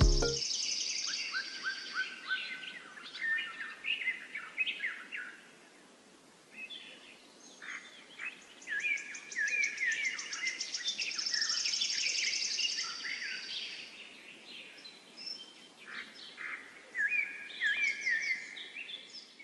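Several birds chirping and calling, with short rising and falling chirps and quick high trills over a faint steady hiss, quieter for a moment about six seconds in.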